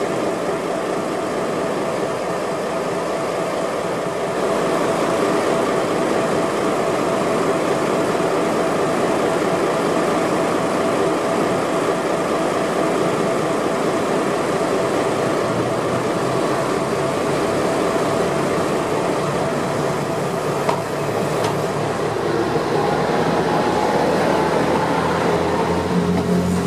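KiHa 200 series diesel railcar's engines running at the platform, then working harder as it pulls away: from about halfway through a low pulsing engine note builds and grows louder toward the end.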